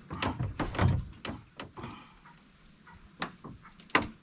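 Irregular knocks and clicks: a dense run with low thumps in the first two seconds, then a few scattered sharp clicks, the loudest near the end.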